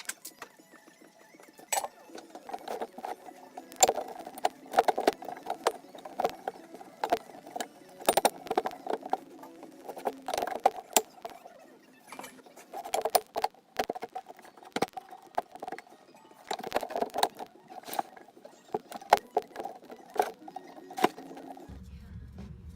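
Steel square tubing being handled and set into position: irregular sharp metallic clinks and knocks, many in quick succession.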